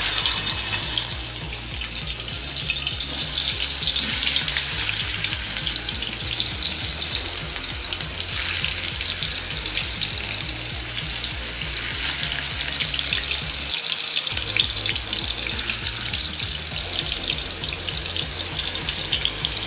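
Marinated chicken pieces shallow-frying in hot oil in a pan: a steady sizzle that starts suddenly as the first piece goes into the oil.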